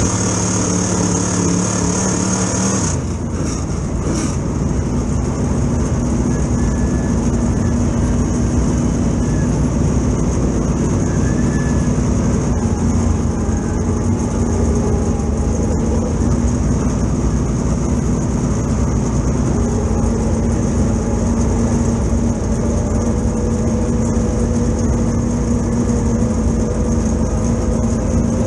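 Dirt super late model's V8 engine heard from inside the cockpit, running at steady revs with an even drone. The sound shifts abruptly about three seconds in, then holds steady with no rise or fall in pitch.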